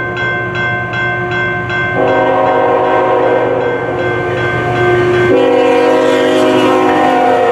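Level-crossing warning bell ringing in regular strokes for about the first two seconds, then a freight locomotive's air horn sounds a loud chord for a grade crossing as the train approaches, changing to a second, louder blast about five seconds in.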